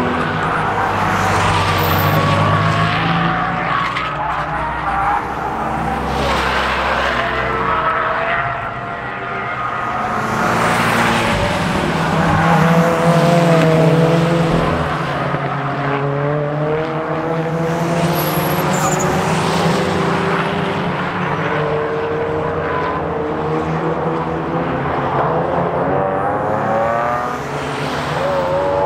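Several sports cars' engines and exhausts passing one after another through a racing-circuit corner, revving up and down as they brake and accelerate out of the turn.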